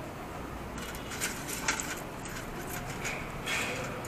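Metal tongs rattling through forks and spoons in a stainless steel pot of water, giving several light metallic clinks over a steady background hum.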